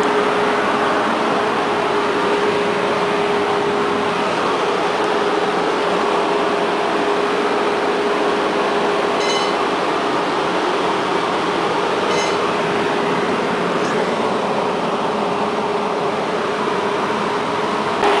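Steady electric hum of a standing tram, with a constant mid-pitched whine. Two short, high ringing pings come about nine and twelve seconds in.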